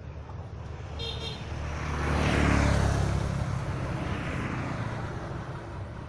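A motor vehicle passing on the road, its engine and tyre noise swelling to a peak about two and a half seconds in and then fading away. A brief high-pitched tone sounds about a second in.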